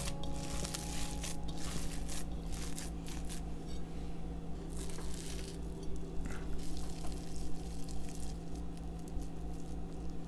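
Wet squishing of raw ground meat mixed with chopped onion and parsley as hands knead it and roll it into balls, in short irregular squelches.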